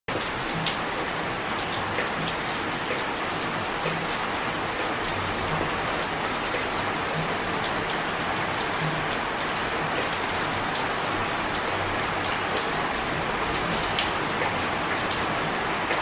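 Steady rain falling on a shallow pond: a constant hiss of drops landing on the water, with scattered sharper individual drop splashes.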